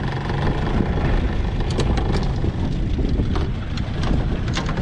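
Small boat's outboard motor running steadily at trolling speed, a low rumble with wind buffeting the microphone and a few sharp clicks.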